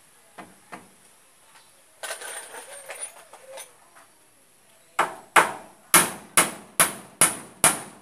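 Hammer blows on timber: a few light taps, a short rustling stretch, then from about five seconds in a steady run of sharp, loud strikes, about two and a half a second, as a nail is driven.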